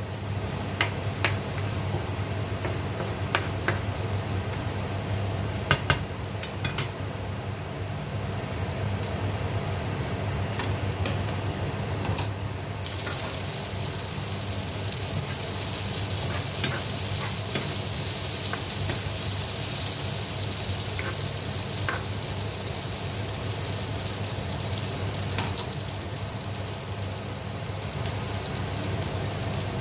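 Onion and garlic sautéing in a hot pan: a steady sizzle, with scattered clicks of a spatula stirring against the pan. The sizzle turns brighter and a little louder a little before halfway through.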